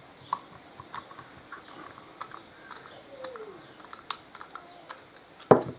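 Light metallic clicks and taps of a hex-key tool and parts on a Performance Machine four-piston brake caliper being taken apart. Near the end comes one loud knock, the caliper piston falling out onto the bench.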